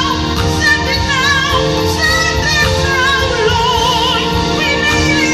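A gospel choir and lead singers performing with a live band, the women's voices holding long notes with vibrato over keyboards and a steady low accompaniment.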